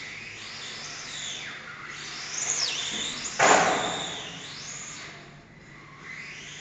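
Electric radio-controlled model car's motor whining, its pitch sweeping up and down as it speeds up and slows around the track. A sudden louder hiss about three and a half seconds in fades over a second.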